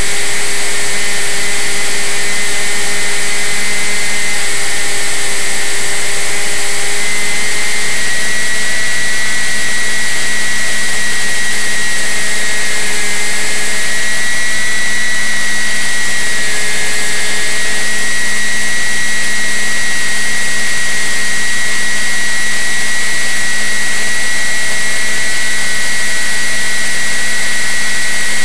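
Onboard sound of a radio-controlled flying wing's motor and propeller running at a steady speed: a constant high whine over a loud, even rush of wind on the microphone. The pitch steps slightly a few times.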